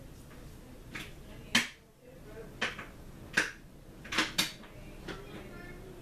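A three-speed 52-inch Hunter five-blade ceiling fan running on high, a steady low whir. Over it come about six sharp clicks or knocks at uneven moments, the loudest about one and a half seconds in and two close together past the middle.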